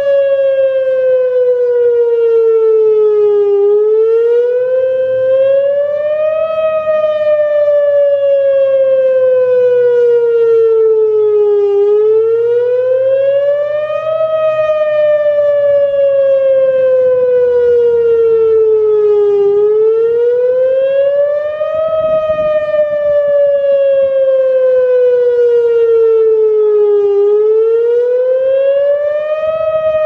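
Whelen WPS-2904 electronic outdoor warning siren sounding its attack signal: a loud wailing tone that rises over about three seconds and falls over about five, repeating about four times.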